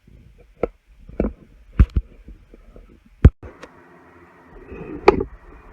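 Metal tools and engine parts knocking and clinking while being handled on a small motorcycle engine: about half a dozen sharp, irregular knocks, the loudest a bit over three seconds in.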